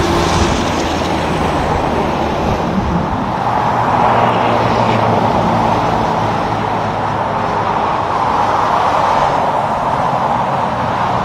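Road traffic passing on a highway: steady tyre noise with a low engine drone, swelling gently as vehicles go by.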